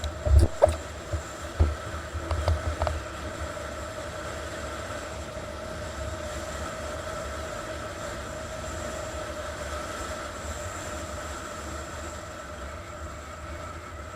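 50cc scooter engine running at a steady cruising speed, a constant droning hum, with wind rumbling on the microphone. A few sharp knocks come in the first three seconds.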